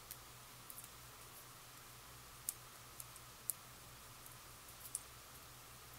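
Faint, scattered clicks and ticks of fingernails and small paper pieces being handled while thin foam adhesive dimensionals are peeled and pressed onto the back of a die-cut paper bow. A low steady hum runs underneath.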